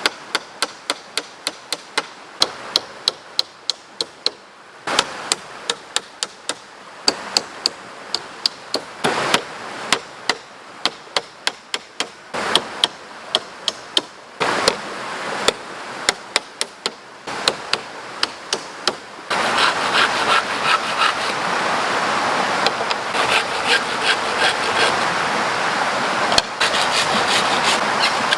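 Repeated sharp tool strikes on wood, about two or three a second in uneven runs with short pauses. About two-thirds of the way in, a steady rushing noise comes in suddenly and the strikes continue over it.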